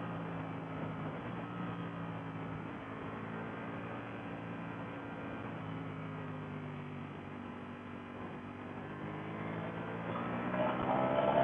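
Ducati Panigale V4S's V4 engine running at highway speed under wind rush, its note sagging gently as the bike slows, then rising and getting louder as the throttle opens about ten seconds in.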